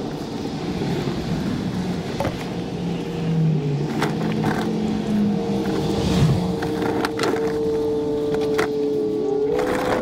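Scattered metal clicks of a wrench on the nuts of an exhaust band clamp, heard over a steady rushing noise and a low hum that rises in pitch near the end.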